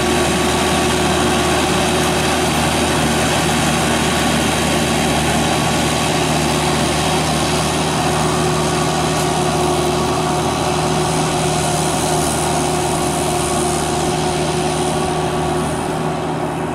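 Kubota diesel engine of a homemade tracked rotary tiller running steadily while tilling a muddy rice paddy. It runs very evenly and strongly.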